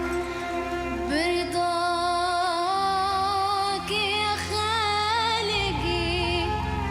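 A child singer sings a slow Arabic song phrase with strong vibrato and melismatic turns over instrumental accompaniment. The voice enters about a second in and holds long notes before trailing off near the end.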